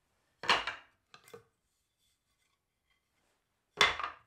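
Milled white oak boards knocked together as they are lifted and set down on a pile: a sharp wooden clack about half a second in, two light taps a moment later, and another loud clack near the end.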